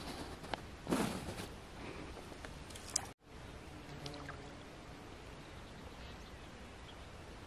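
Close handling noise as a ball of dough bait is worked onto a fishing hook by hand: rustling with a few small clicks. It cuts off sharply about three seconds in, giving way to a steady faint outdoor hiss.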